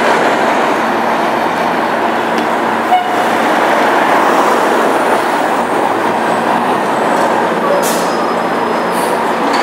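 Steady city traffic noise as buses and cars go by on an avenue, with one brief sharp knock about three seconds in.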